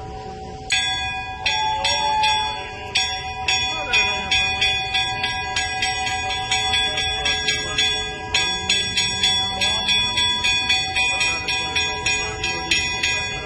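Church bells rung rapidly and irregularly in a festive peal, about two to three strikes a second, starting about a second in after a short lull. Steady tones are held beneath the strikes.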